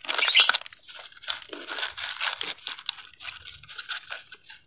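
Thin clear plastic water bottle, cut in half, crinkling and crackling as it is handled around a plant stem for air layering. Loudest in the first half-second, then softer irregular crinkles.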